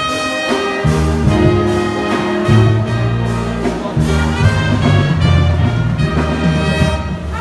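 Brass-band music, the school fight song, playing loud with strong low notes and a steady beat.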